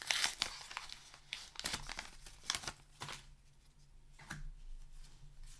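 Paper booster-pack wrapper being torn open and crinkled: a string of short rustles and tears over the first three seconds, then a few fainter rustles.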